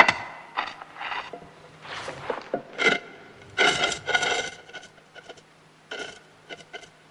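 Repeated scraping and grating in irregular bouts, with a squeal in some strokes: a heavy tomb lid being levered and shoved aside.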